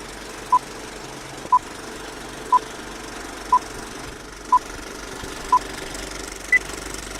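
Electronic countdown beeps: six short beeps at the same pitch, one a second, then a single higher beep, over a steady low hum.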